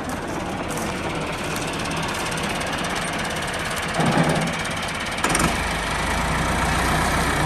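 Alghazi tractor engine running steadily as it drives an old wheat threshing machine, a continuous mechanical din. There is a brief louder burst about four seconds in, and a heavier low rumble joins a little after five seconds.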